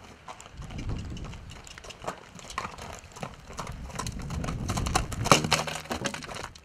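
Horse's hooves and a person's footsteps crunching on gravel as the horse is led at a walk, with a sharp knock about five seconds in followed by a short low-pitched sound.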